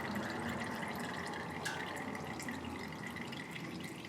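Used engine oil dripping into a catch bucket as the drained engine finishes emptying, a slow, irregular drip.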